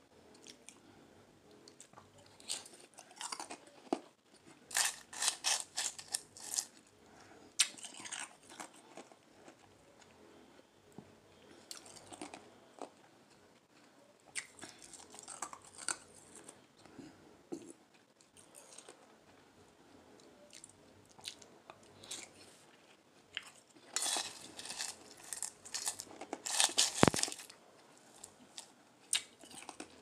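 Crushed ice being crunched and chewed in the mouth, in several bursts of crisp crunching with quieter chewing between, the loudest near the end.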